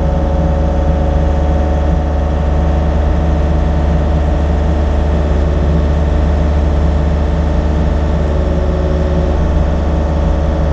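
Excavator's diesel engine running at a steady speed while the machine is being manoeuvred with a load hanging from its boom, with a faint higher whine coming and going in the middle.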